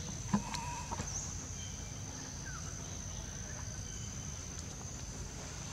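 Insects buzzing steadily in one high pitch, with a couple of light clicks in the first second.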